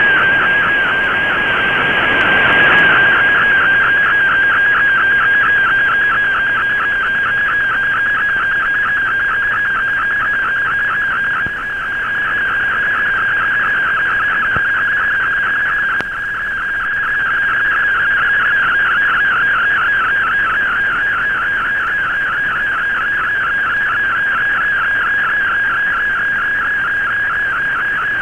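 Warbling data tone of an Fldigi MFSK picture-mode image transmission, received on shortwave through an Icom IC-R8600 receiver, over steady band hiss. The signal drops briefly with fading about 11 and 16 seconds in.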